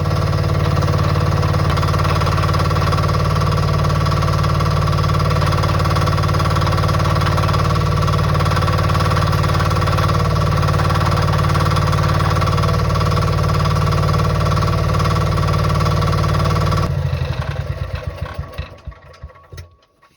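Mini excavator engine running at a steady idle for a test run after a hydraulic line was tightened. About three-quarters of the way through it is shut off and runs down to a stop.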